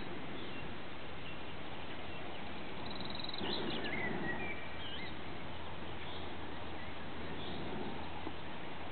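Steady outdoor hiss with a few short, whistled bird calls, rising and falling in pitch, about three to five seconds in.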